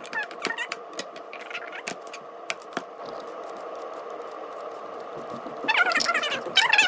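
Kitchen knife tapping and clicking on a plastic cutting board, then a vegetable peeler scraping along a cucumber. Near the end a loud, high, wavering pitched sound comes in.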